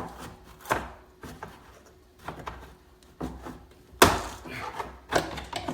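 A door panel tool prying at a Chevy Impala's plastic interior door panel to free its retaining clips. It makes scattered clicks and knocks, with one sharp crack about four seconds in.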